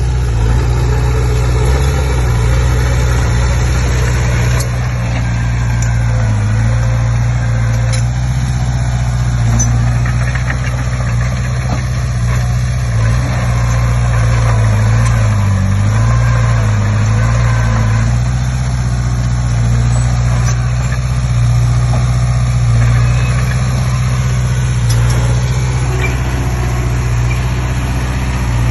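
Diesel engine of a Komatsu D20P crawler bulldozer running steadily, a low even engine note that dips slightly in pitch a few times around the middle.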